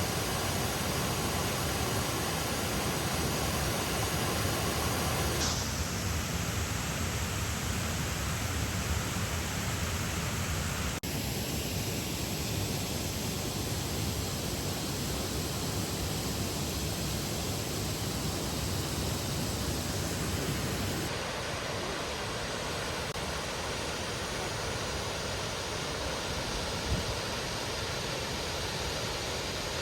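Rushing water of a mountain gorge stream or waterfall, a steady full hiss. Its tone shifts abruptly three times, about five, eleven and twenty-one seconds in.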